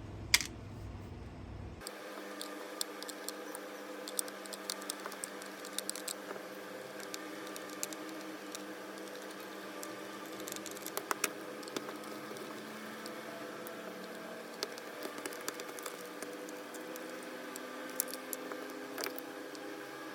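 Scattered light clicks and taps of parts being handled, over a steady hum.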